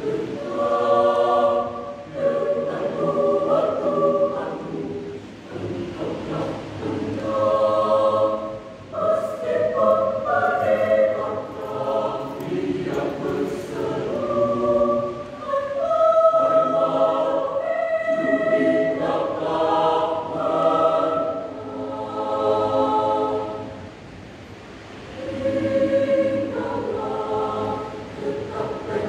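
Mixed youth church choir of male and female voices singing in sustained phrases under a conductor, dipping briefly about three-quarters of the way through before the next phrase.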